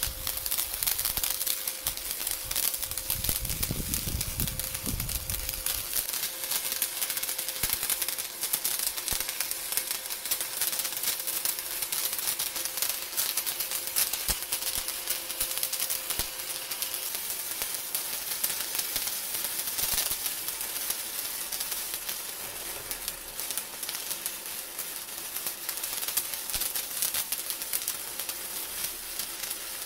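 MIG welding arc crackling and sizzling steadily, a dense run of fast pops, with a faint steady hum under it through the first half.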